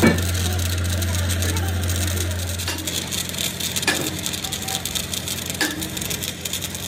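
Sharp single knocks about every one to two seconds over a steady low hum; the hum drops away about three seconds in.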